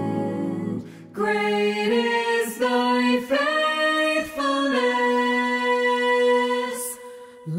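A cappella vocal ensemble singing: a full chord of many voices ends within the first second, then a single voice carries the melody alone, singing a short phrase and then holding one long note until a brief pause near the end.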